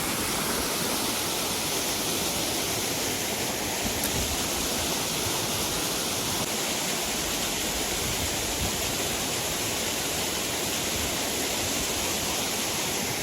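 Steady, even rushing noise outdoors, at a constant level throughout.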